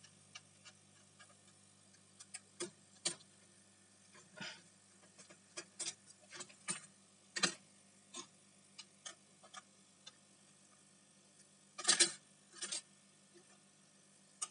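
Irregular small clicks and taps of metal parts and a screwdriver as a laptop's CPU heatsink is unscrewed and lifted off the motherboard, with a louder clatter of handling about twelve seconds in.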